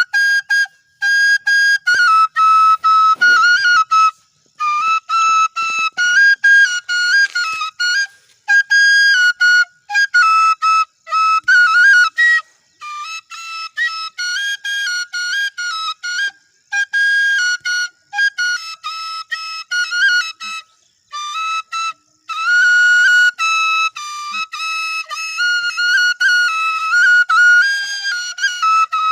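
Bansuri (Indian bamboo flute) playing a high, ornamented melody with quick bends and trills, in short phrases broken by brief pauses.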